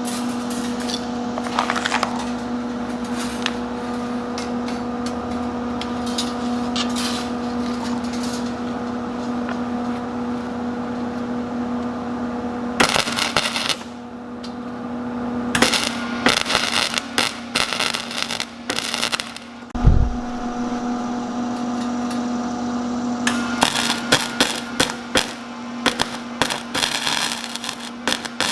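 Wire-feed welder arc crackling and sizzling as broken steel-wire tomato cages are tack-welded. There is a long continuous weld at first, then short bursts of welding later on, over a steady electrical hum. A single low thump comes near the middle.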